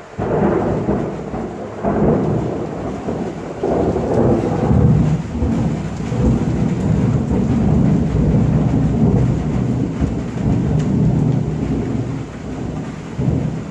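Thunder: a sudden loud clap just after the start, then a long rolling rumble that swells again several times and surges once more near the end.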